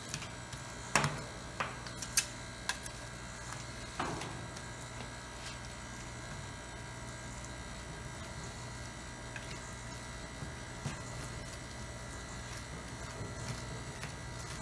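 Refrigeration compressor of a fried (rolled) ice cream machine humming steadily, with a few sharp taps and scrapes of metal spatulas on its chilled steel plate during the first four seconds.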